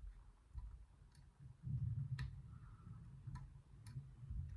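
Lever pick working the levers of a four-lever safe drawer lock: a few sharp metallic ticks, roughly one a second, over a low rumble of handling noise.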